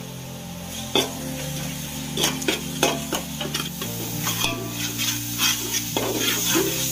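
Metal spoon stirring and scraping a thick masala paste frying in oil in a metal pot, with the paste sizzling. A sharp knock of the spoon about a second in, then a run of short scrapes.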